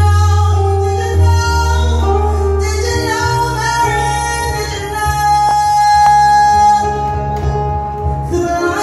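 Live music: a woman sings into a microphone over acoustic guitar and a keyboard that holds deep bass notes. She holds one long note about halfway through.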